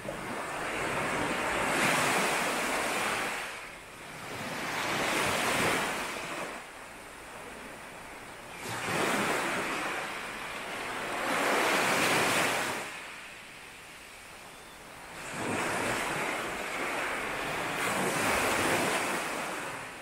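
Sea surf washing onto a beach: six waves in turn swell into a rush of foam and fade away, each surge lasting two to three seconds.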